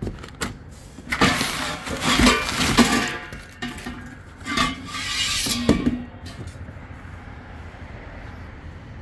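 Crumpled packing paper rustling and steel exhaust pipes knocking and ringing as they are lifted out of a cardboard box, in two bursts with quieter handling between and after.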